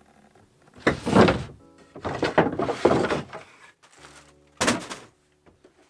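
Hollow thumps and knocks as someone climbs down the companionway steps into a small sailboat's wooden cabin, over music. The louder knocks come about a second in, again two to three seconds in, and a short sharp one near the end.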